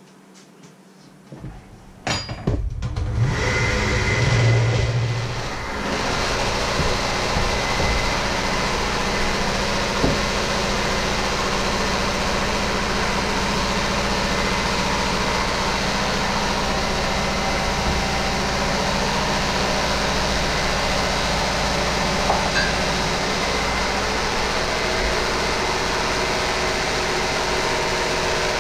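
An electric hand mixer starts about two seconds in and then runs steadily, its beaters whirring in a bowl.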